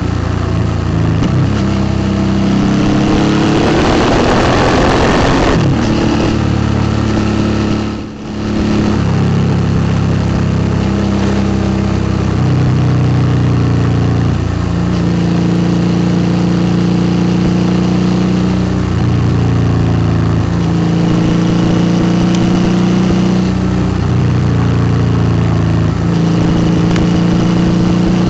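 2008 Suzuki V-Strom 650's 645 cc V-twin engine running through a Delkevic exhaust under way, its revs stepping up and down with the gear changes. There is a short rushing noise about four to five seconds in, and a brief sharp dip in the engine sound about eight seconds in.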